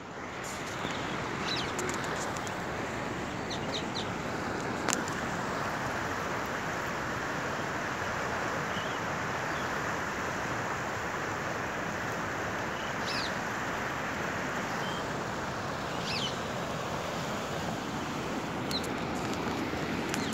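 Steady rushing of a fast-flowing river, with a few short high bird chirps now and then.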